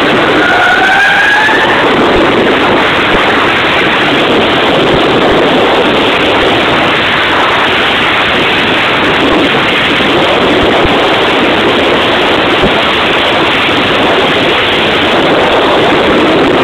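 Mazda RX-8's rotary engine running hard, heard from inside the cabin as a loud, dense, noisy sound. A brief rising tone comes in about half a second in.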